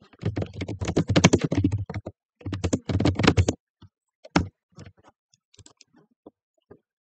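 Fast typing on a computer keyboard in two quick runs of key clicks, then a few scattered single clicks, one of them louder just after four seconds.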